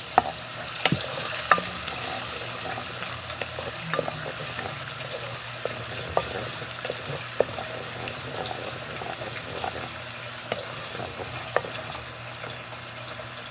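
Garlic and onion sizzling in hot cooking oil, stirred with a utensil that clicks and scrapes against the pan now and then.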